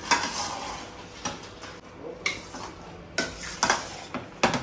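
Metal spoon stirring fusilli pasta in thick white sauce in a stainless steel pot, scraping the sides with a sharp clink against the metal every second or so, loudest near the end.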